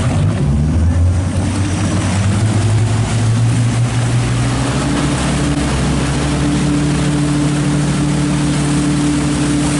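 Motorboat engine pulling a rider up on a board and holding speed, its pitch climbing about half a second in and again around five seconds, over the rush of churning wake water.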